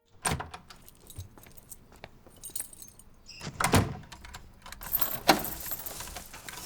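Keys jangling and small metallic clinks, with a few louder knocks spread through.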